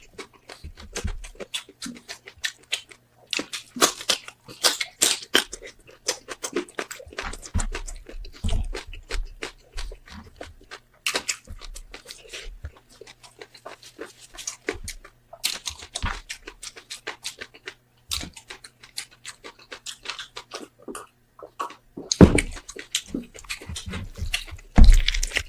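Close-up wet chewing and lip-smacking of a person eating roasted pork head, a quick irregular run of clicks and smacks, with two heavy thumps near the end.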